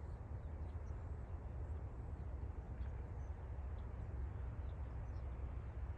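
Open-field outdoor ambience: a steady low rumble, with a few faint, short high chirps of distant birds.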